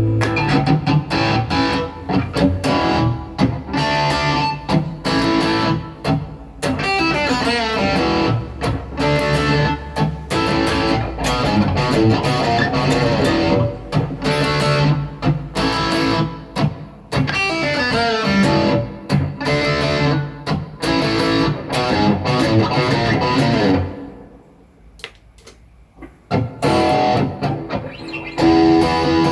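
Electric guitar played through a Boss GT-1000 Core multi-effects processor: a run of picked notes with bent and sliding pitches. The playing stops for about two seconds near the end, then starts again.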